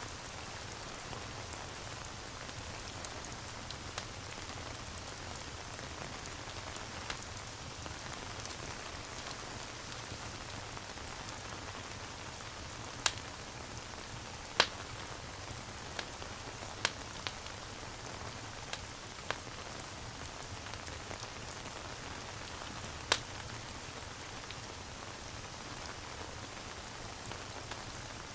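Steady rain falling, with a few sharp pops of a crackling wood fire in its middle part, the loudest about halfway through.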